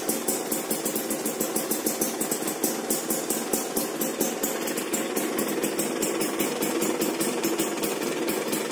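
Suzuki Satria 120's two-stroke single-cylinder engine idling steadily through a Mams aftermarket exhaust with an expansion chamber and carbon silencer, giving a fast, even popping beat.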